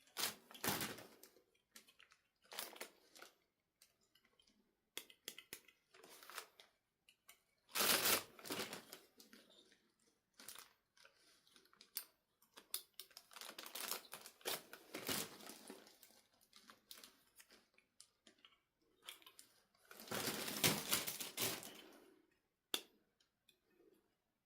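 Doll packaging being opened by hand: irregular bursts of tearing and crinkling of cardboard and plastic, with sharp clicks and short quiet gaps between them.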